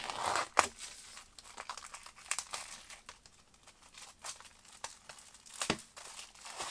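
Plastic shrink wrap being torn and peeled off a CD album by hand, crinkling and crackling irregularly, with louder rips just after the start and near the end. The wrap is tight and hard to get open.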